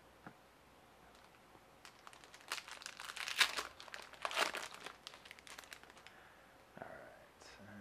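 Foil hockey card pack being opened by hand: the wrapper crinkles and tears in a flurry of crackles from about two to five seconds in, loudest around the middle.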